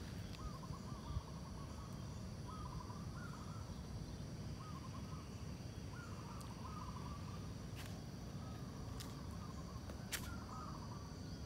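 A bird calling over and over in short chattering phrases, about once a second, over a steady high insect drone and low rumble. A few sharp clicks come in the second half.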